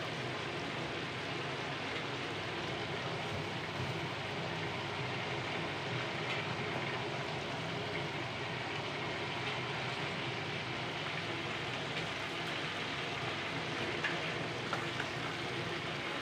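Chicken pieces frying in a large pot of bubbling oil: a steady sizzle, with a few faint clicks.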